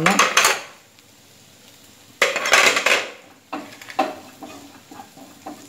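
Wooden spatula scraping and stirring dry spice powders in a metal kadai: a short burst at the start, a longer scrape about two seconds in, then a few light taps against the pan.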